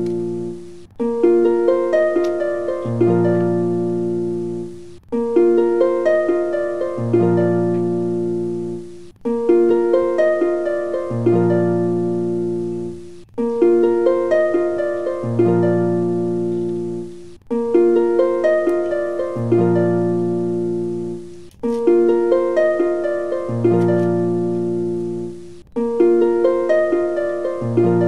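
Background music of gently plucked, harp-like notes. A short phrase loops with a brief break about every four seconds.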